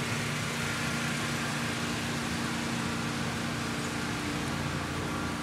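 A steady hiss with a low, even motor-like hum underneath, holding at one level throughout.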